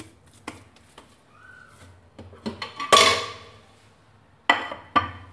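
Ceramic dishes, a bowl and a plate, knocking against each other and the counter as they are handled. There are a few light clicks, one loud clatter with a short ring about three seconds in, and two sharp knocks near the end.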